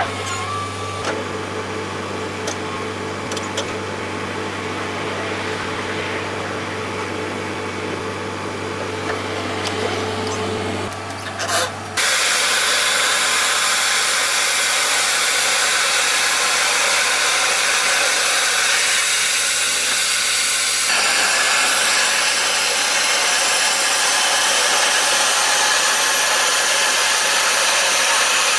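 Wood-processing machinery running: a steady machine hum with scattered clicks, then, after an abrupt cut about twelve seconds in, a louder, even, hissing machine noise.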